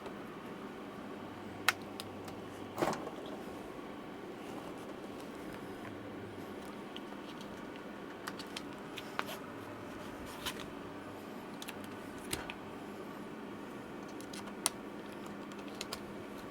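Scattered small clicks and taps of hand tools working the glued battery out of a 2012 MacBook Pro's aluminium case, over a steady low hum.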